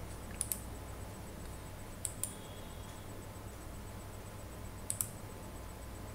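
Computer mouse clicked three times, each a quick double tick of press and release, over a low steady electrical hum.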